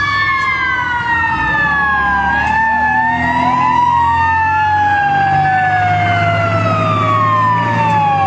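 Several emergency-vehicle sirens wailing together, their pitches sweeping slowly down and back up out of step with one another, over a low engine rumble.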